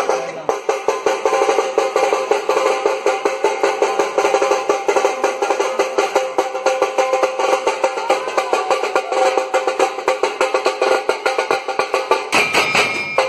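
Dhol-tasha ensemble drumming: big barrel-shaped dhol drums and high, snare-like tasha drums beaten together in a fast, dense, driving rhythm. A brief shrill sound rises over the drums near the end.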